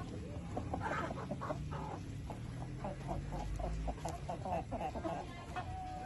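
Brahma chickens clucking: a steady run of short clucks, about three or four a second, with one longer held note near the end.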